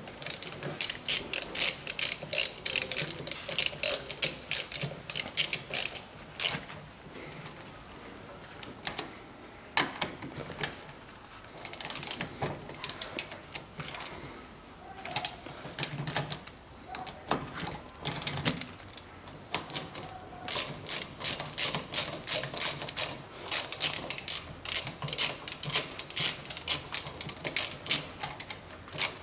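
Ratchet wrench clicking in quick runs of ticks while the rear brake drum's guide bolts are screwed in, with a quieter pause of scattered clicks midway.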